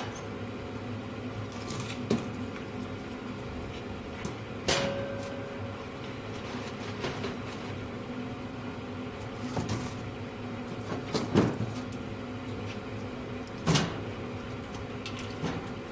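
Split firewood being stacked by hand into the firebox of a CTC V40 wood boiler: a handful of wooden knocks and clunks a few seconds apart, the sharpest about two-thirds of the way in, over the steady hum of the boiler's draft fan.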